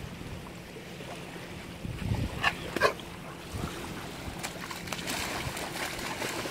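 A dog barks twice in quick succession about two and a half seconds in, then splashes as it runs into shallow river water near the end.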